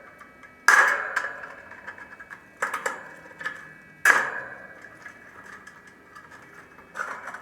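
Three sharp metallic clanks about a second and a half to two seconds apart, each ringing briefly, with small clicks and rattles between them: tools and metal parts handled during capacitor replacement on an air-conditioning unit.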